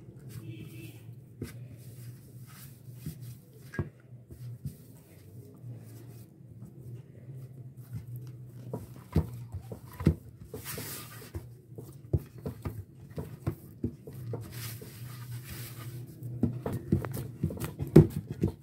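Hands kneading wheat-flour dough in a steel bowl: irregular soft squishes and knocks against the bowl, coming thicker from about halfway on, over a steady low hum.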